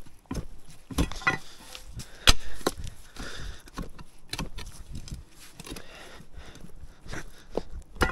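Hand digging tool striking earth and stone in irregular blows, roughly one or two a second, some much sharper than others.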